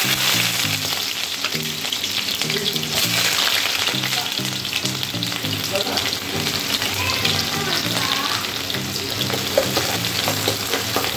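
Chopped onions sizzling steadily in hot oil in a frying pan. Near the end a metal spoon stirs them, with a few sharp clicks against the pan.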